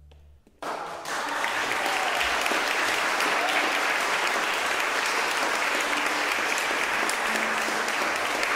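After a brief hush, audience applause breaks out suddenly about half a second in and continues steadily.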